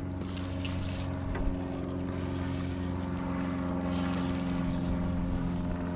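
Boat motor running steadily with an even hum, with a few faint ticks over it.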